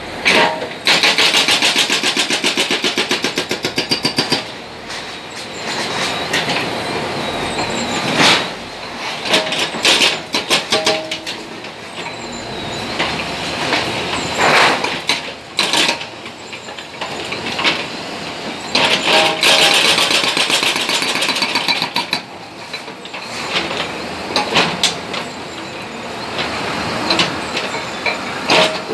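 Hydraulic breaker on a JCB 3DX backhoe loader hammering into concrete: rapid, evenly spaced blows in runs of a few seconds, over the steady running of the backhoe's diesel engine. The longest runs come right at the start and again about two-thirds of the way through.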